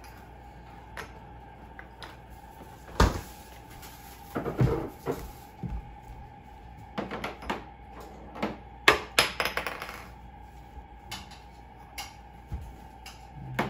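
Irregular knocks and short clatters of small plastic toy kitchen pieces (a toy coffee maker and little cups) being handled and set down on a plastic play table.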